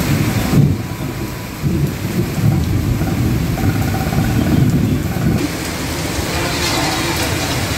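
Heavy rain pouring down in a torrential storm, with a deep rumble underneath. The sound shifts abruptly about half a second in and again past five seconds.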